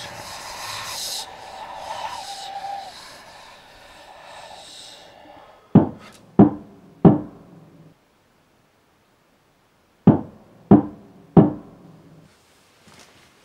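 Two sets of three loud knocks on a wooden door, about two-thirds of a second apart, with a gap of about three seconds between the sets. Before them, a swelling hiss with a held tone fades away over the first few seconds.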